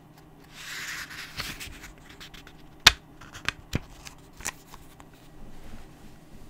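A book page being turned, a short paper rustle about a second in, followed by a string of small clicks and taps as the book is handled, the sharpest one near the middle.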